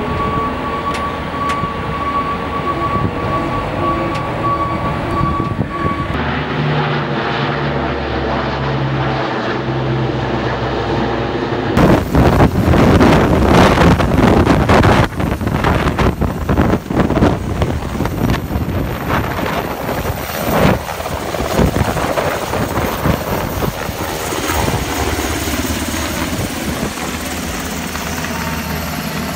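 A vehicle engine runs at first. About twelve seconds in, a Black Hawk-type military helicopter passes low overhead; its rotor beats loudest for a few seconds, then settles into a steadier drone.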